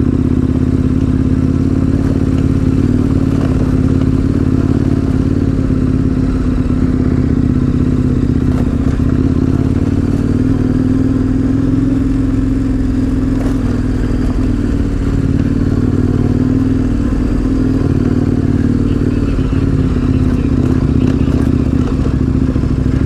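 Twin-cylinder adventure motorcycle engine running at a steady speed while riding a rough dirt forest road.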